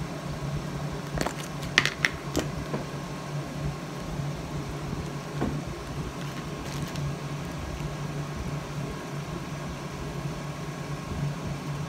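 Steady low mechanical hum, with a few sharp clicks and knocks about two seconds in.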